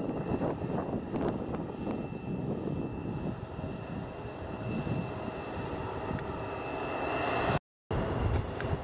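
Embraer E-Jet regional jet's turbofan engines running at low power as it taxis, with a steady high whine over a broad rumble.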